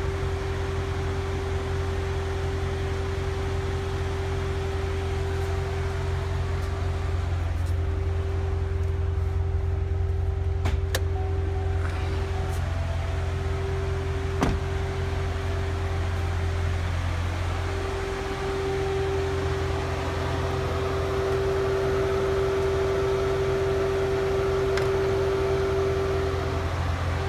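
2014 Corvette's 6.2-litre LT1 V8 running at a steady pace on the road, a low drone with a steady higher hum over it; the drone eases slightly about eighteen seconds in.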